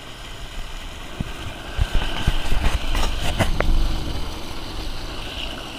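Low rumbling noise on a fishing-rod camera's microphone, with several sharp knocks and handling sounds. Water splashes right at the camera, and the noise is loudest between about two and four seconds in.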